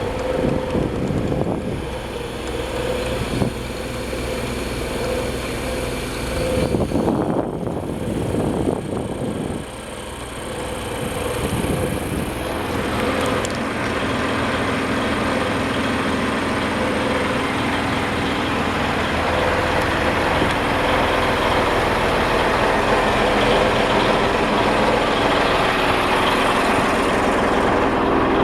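Yanmar 6KY-ET six-cylinder marine diesel running steadily, getting gradually louder from about ten seconds in.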